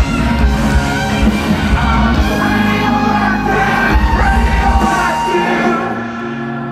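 Live rock band playing loud over a big festival PA, heard from within the crowd, with singing and shouting voices over the music. About five seconds in the heavy bass drops out and the sound thins as the song winds down.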